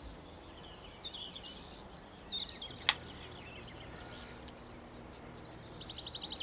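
Songbirds chirping over a steady low hum of outdoor background noise, with a single sharp click about three seconds in and a fast, rapidly repeated chirping trill near the end.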